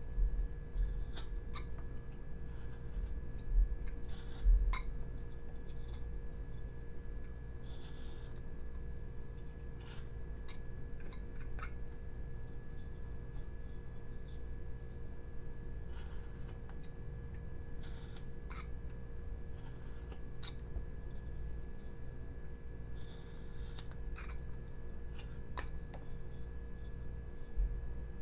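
Carving knife slicing and paring a basswood figure by hand: scattered short crisp cuts and scrapes, with a couple of dull bumps about four seconds in, over a steady low hum.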